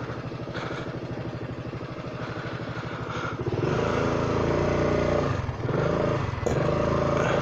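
Honda Forza 300 scooter's single-cylinder engine idling, then pulling away about three and a half seconds in and running louder as it rides off, easing off briefly twice.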